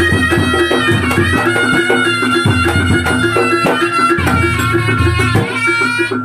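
Reog Ponorogo gamelan music: a slompret shawm plays a wavering, reedy melody over kendang drum strokes and a steady repeating beat of gong chimes.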